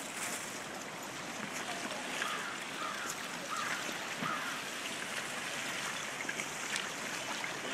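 Winter river full of broken ice floes and slush: a steady rush of flowing water, with faint ticks and knocks of ice chunks bumping and scraping past. A few faint short squeaks come two to four seconds in.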